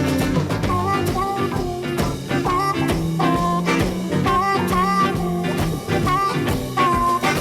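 Blues record playing an instrumental passage without vocals: a band with short, bending lead notes over a steady bass and drum rhythm.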